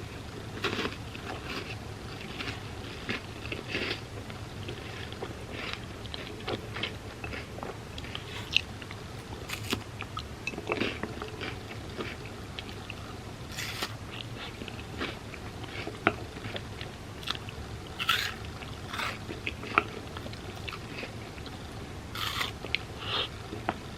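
Close-up chewing and crunching of hazelnut-cream-filled wafer bars eaten as cereal in milk, with irregular crisp bites every second or so.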